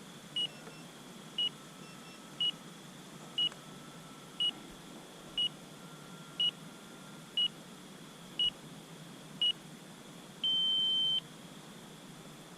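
Electronic beeps from an RC transmitter: ten short beeps one a second, then one longer beep. This is the pattern of a flight timer counting down its last ten seconds and sounding at zero.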